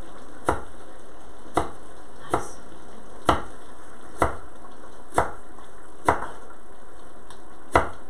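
Chef's knife slicing through a head of napa cabbage onto a wooden cutting board: slow, even strokes about one a second, eight sharp knocks in all. Under them runs a steady background hiss.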